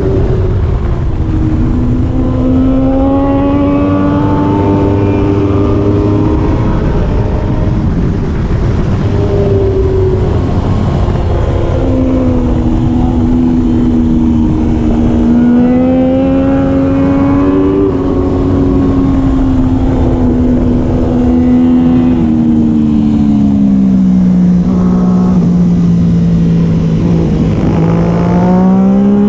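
Triumph Daytona 675R's three-cylinder engine running hard at racing speed, its pitch climbing and dropping with the throttle and gear changes. Near the end it falls away for several seconds, then climbs again.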